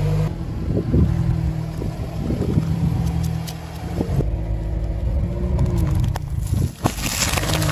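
Car tyre crushing objects, played backwards, with scattered cracks and crunches over a car engine running. Near the end comes a dense crackling of crushed cardboard snack cans.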